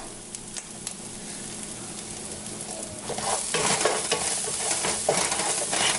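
Onions, ginger-garlic paste and green chillies sizzling in oil in a non-stick frying pan. About three seconds in, a wooden spatula starts stirring and scraping through the mixture, and the sound grows louder as freshly added garam masala is mixed in.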